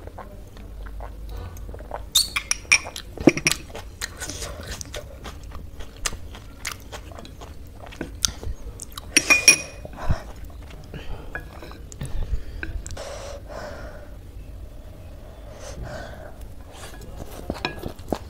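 Close-miked eating of chow mein noodles: wet chewing and slurping, with many sharp clicks and short crackly bursts, the loudest about two to three seconds in and again around nine seconds.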